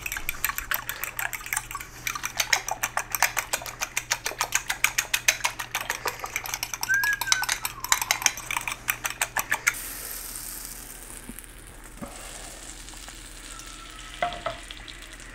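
Eggs and milk being beaten in a bowl: quick, even strokes of a utensil clicking against the bowl for about ten seconds, then stopping. Afterwards a fainter steady sizzle of butter heating in a frying pan.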